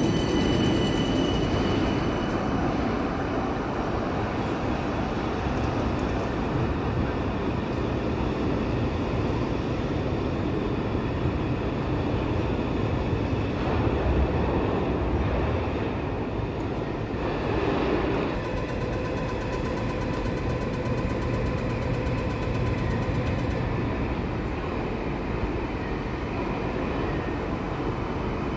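Electric light rail vehicle pulling away from the stop, its traction motor whine holding steady for the first couple of seconds and then fading as it leaves, with steady background noise after it. Near the end a faint whine returns as a second tram approaches.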